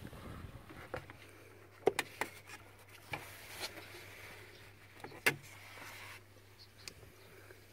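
A few sharp clicks and taps of pliers being handled around a radiator hose clamp in the engine bay, two close together about two seconds in and another loud one past five seconds.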